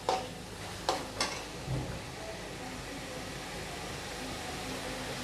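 A steel spoon scrapes and knocks against a steel kadhai three times in the first second and a half, each knock ringing briefly, as sauce-coated onions and green chillies are stirred. Then a steady sizzle as they fry on high flame.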